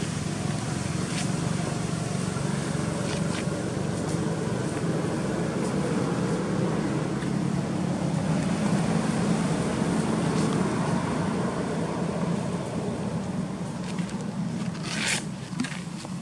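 Steady low rumble of motor traffic, with a few faint clicks and one brief sharp high sound near the end.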